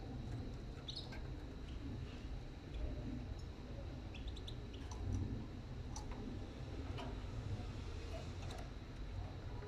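Scattered small clicks and taps from a young European goldfinch moving about its wire cage near the offered food, with a few short, faint chirps.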